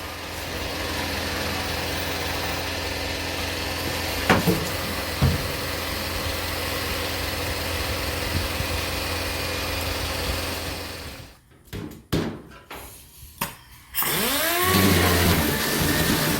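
Dual-action sander running steadily as it sands and scuffs the pickup bed. It cuts out about eleven seconds in, gives a few short bursts, then runs again with its pitch dipping and rising.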